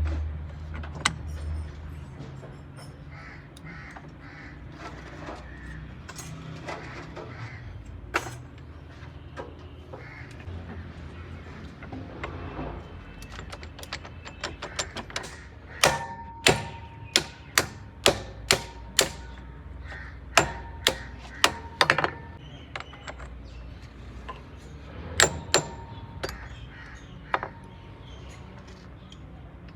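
A run of sharp knocks, about a dozen at roughly two a second in the second half, over a steady low hum.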